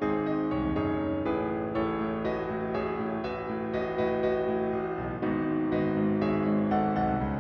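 Solo piano background music, a piano arrangement of a pop song, with a steady flow of notes.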